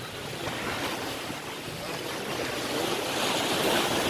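Ocean surf washing against the jetty rocks, with wind on the microphone; the wash grows louder about three seconds in.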